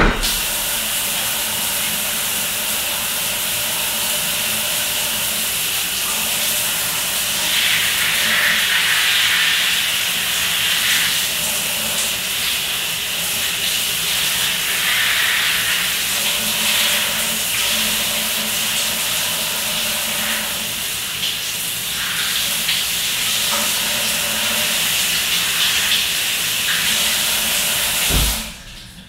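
Shower running: a steady hiss of spray hitting a person and the tiled stall. It cuts off near the end with a brief low thump.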